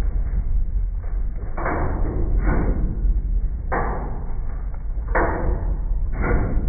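A washing machine being wrecked: loud banging impacts about once a second, at irregular spacing, over a constant deep rumble.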